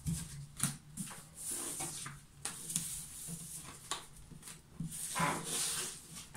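Tarot cards and paper notes being gathered up off a wooden desk. The cards slide and rub against each other and the tabletop, with a string of light taps and clicks and a longer swish about five seconds in.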